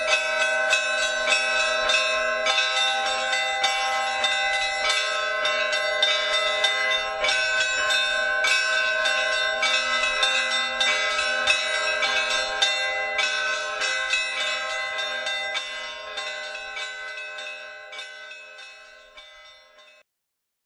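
Bells struck in a quick, steady run of strikes, many ringing tones overlapping. The ringing fades out over the last third and stops shortly before the end.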